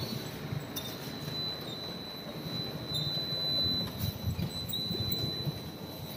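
Automatic bottle filling and capping line running: conveyor and capping machinery clattering irregularly over a steady mechanical noise, with a thin, steady high-pitched tone.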